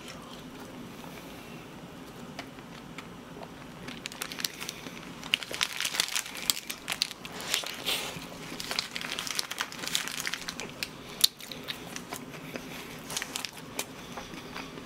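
Close-miked crinkling and crackling of a toast sandwich's paper wrapper as it is handled and bitten into, with eating sounds. The crackling starts about four seconds in and comes in quick irregular clusters from then on.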